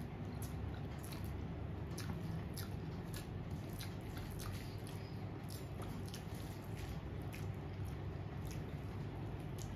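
Close-up eating sounds: wet chewing and small mouth clicks and smacks, scattered irregularly, as rice and curry are eaten, over a steady low hum.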